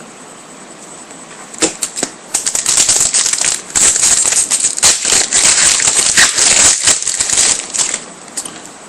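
Foil wrapper of a trading-card pack crinkling and tearing as it is opened and handled: a dense, crackly rustle lasting several seconds, with a single sharp crackle shortly before it.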